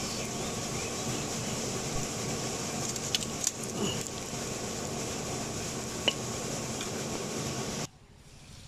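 Chicken fat frying in a hot iron wok: a steady sizzle with a few sharp pops, cutting off suddenly near the end.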